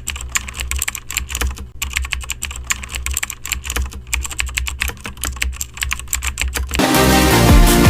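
Rapid keyboard typing clicks over a low hum; about seven seconds in, loud electronic music with a heavy beat comes in.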